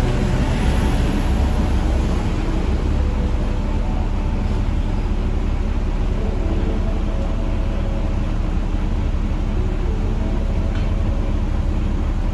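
Double-decker bus's diesel engine running steadily right alongside: a constant low rumble with a hum of steady tones, over general street traffic.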